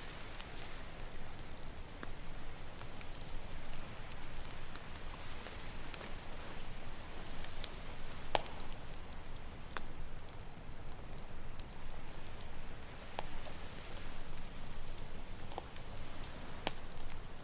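Campfire crackling: irregular sharp pops and snaps, one louder pop about eight seconds in, over a steady low wash of ocean surf.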